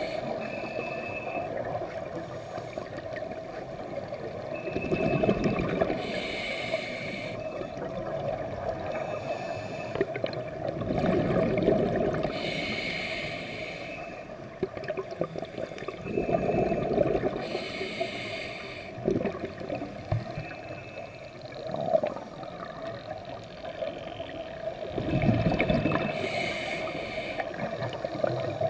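Scuba diver breathing through a regulator, heard underwater: a hissing inhale and a gurgling rush of exhaust bubbles, repeating about every six seconds.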